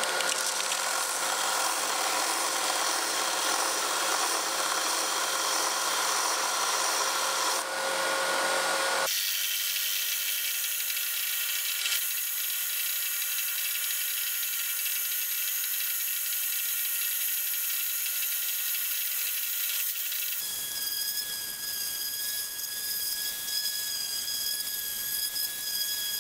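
An oscillating belt sander runs steadily as it grinds the tip of a pine block flat. About nine seconds in, it cuts to a drill press boring a hole down into the wood. About twenty seconds in, that gives way to a random orbital sander running at a higher, steady pitch on the wood.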